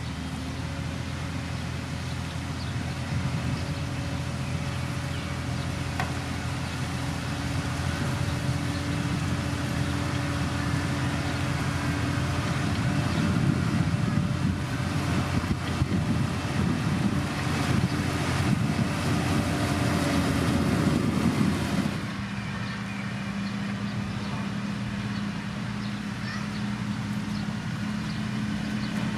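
Diesel engine of heavy road-building machinery running under load, growing louder, then switching abruptly about three quarters of the way through to a quieter, steadier engine sound.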